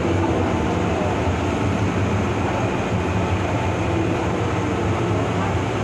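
Interior running noise of an MTR M-Train metro car: a steady, even rumble with a strong low hum as the train travels through the Island Line tunnel.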